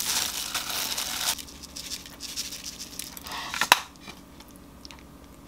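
Soy-dressed chlorella noodles being tipped and arranged in a ceramic bowl: a dense, wet crackling that stops about a second and a half in. Quieter handling sounds and a single sharp click follow.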